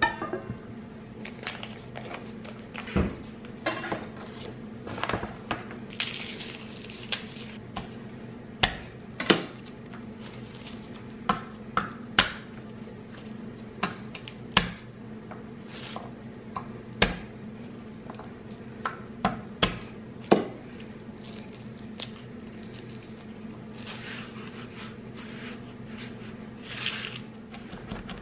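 Garlic cloves being broken off the bulb and peeled by hand on a plastic cutting board: scattered taps and clicks of cloves and fingers on the board, with papery rustling of the skins about six seconds in and again near the end. A steady low hum runs underneath.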